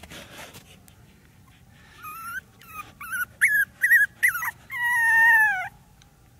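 A dog whimpering: a run of about six short, high whines starting about two seconds in, then one longer whine that slides slightly down in pitch.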